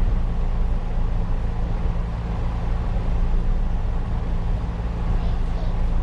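P865 #144 railcar running along the track, heard from its cab: a steady low hum with wheel-and-rail rumble.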